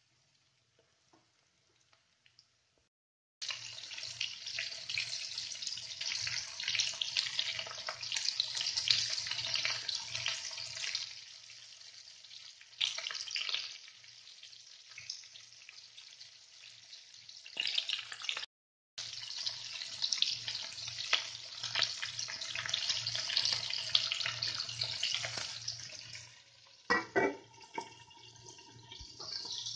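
Hamour fish steaks and chopped onion frying in hot oil in a pan: a steady sizzling hiss full of crackles that starts a few seconds in. Near the end a lid knocks onto the pan a few times and rings briefly.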